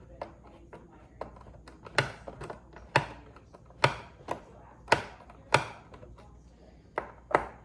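A series of sharp clicks and knocks, irregular and roughly one a second, from a hand tool working on the screws of a Onewheel Pint's footpad as they are backed out.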